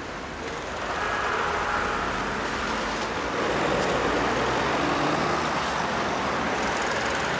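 Steady road traffic noise from cars on a city street, swelling about a second in.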